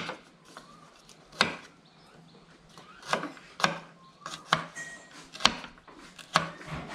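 Chef's knife chopping fresh turmeric root and garlic on a wooden cutting board: single sharp knocks of the blade on the board, unevenly spaced about a second apart.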